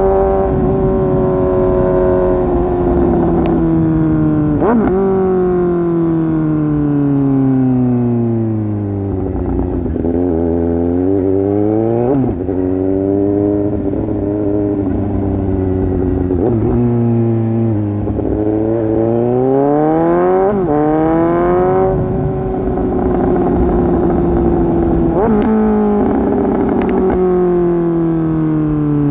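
Suzuki GSX-S750's inline-four engine through an exhaust with its dB killer removed, on the move: revs fall away as it slows, with quick jumps up in revs on several downshifts, then climb and drop sharply on an upshift about twenty seconds in, and hold steady before falling again near the end.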